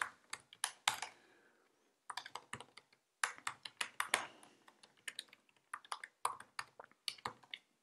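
Typing on a computer keyboard: irregular key clicks in quick runs, with a short pause about a second in.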